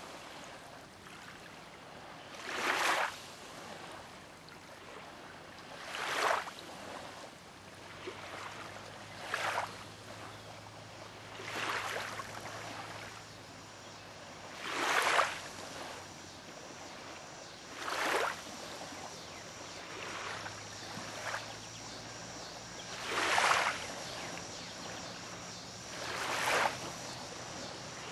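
Small waves washing onto a gravel lake shore, one swell of splashing about every three seconds.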